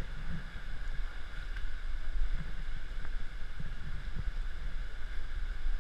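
Water rushing around a camera held at the water's surface, with a steady low rumble of wind and handling on the microphone and a few soft knocks.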